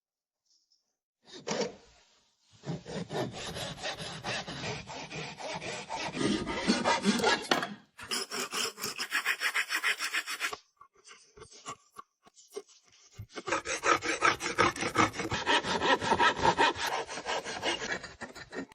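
Hand saw cutting wood in fast, rhythmic back-and-forth strokes, in three long runs with short pauses between them; the middle run sounds brighter and thinner. The cut is for a table-top cross-batten.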